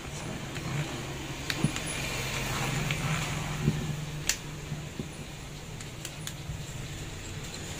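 Scattered clicks and taps of a screwdriver and metal tool parts being handled on a workbench, over a steady low hum.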